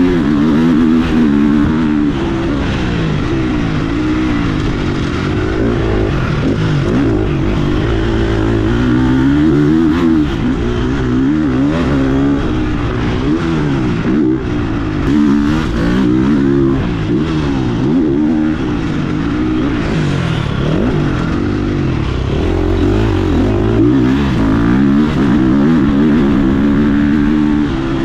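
GasGas MC 350F single-cylinder four-stroke motocross bike ridden hard, its revs climbing and dropping again and again with throttle and gear changes.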